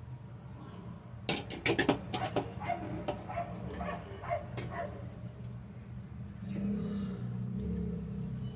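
A dog barking in a quick run of barks, then a low engine hum that swells near the end.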